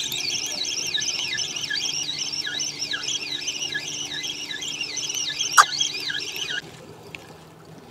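Spinning reel on a feeder rod being wound fast right after the cast, making a high whirring squeal that wavers about two to three times a second with each turn of the handle. It stops abruptly near the end, with one sharp click shortly before.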